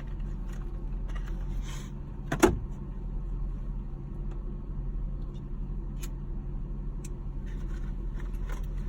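Car engine idling steadily, heard inside the cabin, with one sharp click about two and a half seconds in.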